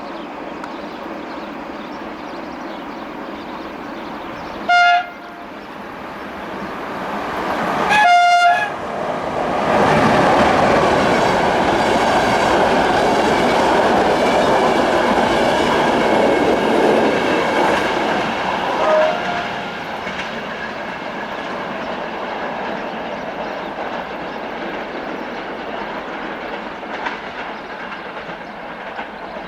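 Romanian EA1-class electric locomotive sounding its horn, a short blast then a longer one, then the passenger train passes at speed, its wheels clattering over jointed rail before the noise eases off.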